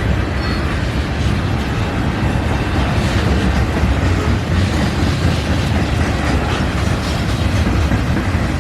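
Canadian National freight train rolling past, a steady loud rumble of steel wheels on the rails with scattered clicks.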